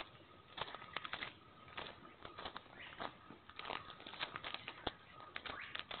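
Footsteps crunching irregularly through dry leaf litter, several crackles a second, with birds calling faintly behind them.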